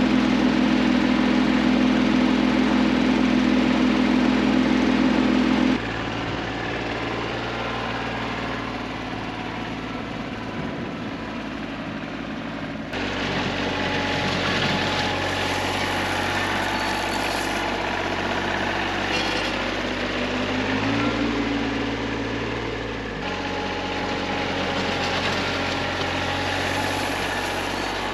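TYM T25 compact tractor's diesel engine running steadily while the tractor drives and works with its front-end loader. The engine note changes at several points and briefly rises in pitch about three quarters of the way through.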